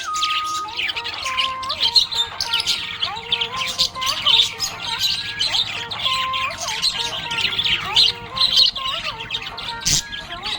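Budgies chirping and warbling together: a continuous chatter of many rapid, overlapping chirps.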